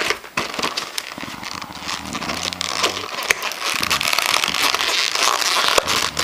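Packing tape being peeled and torn off a cardboard box: a dense, irregular crackling.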